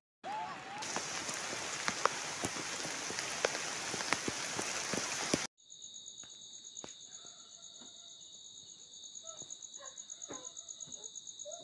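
A steady rush of water with scattered clicks and ticks for about five seconds, then a sudden cut to insects trilling steadily in two high pitches, with a few short faint chirps over them.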